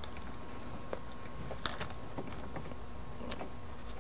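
A few faint clicks and taps of the plastic speaker basket and gasket being pressed and lined up against the door's speaker mount, over a steady low hum of room tone.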